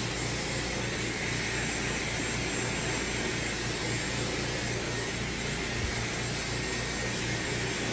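Dyson Supersonic hair dryer running steadily, blowing air through its concentrator nozzle onto a section of hair.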